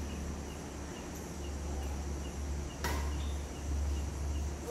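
Crickets chirping in a regular beat over a steady low hum, with one sharp smack of a badminton racket striking the shuttlecock nearly three seconds in.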